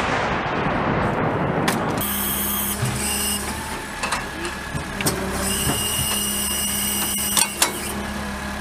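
The rumbling echo of a 155 mm CAESAR howitzer shot fades away. About two seconds in it gives way to the CAESAR truck's diesel engine running steadily with a high whine over it, and there are a couple of sharp metallic clicks near the end.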